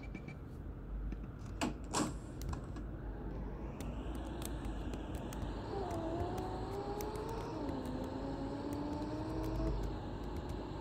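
Mercedes-Benz OC500LE city bus pulling away: a low engine rumble with a whine that rises in pitch, drops back and climbs again as the automatic gearbox shifts up. Two sharp knocks near the start, and light rattling clicks throughout.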